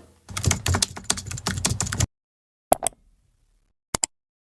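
Unboxing sounds as the product's packaging is handled: a dense run of rapid clicks and crackles for about two seconds, which cuts off suddenly, followed by a few separate clicks.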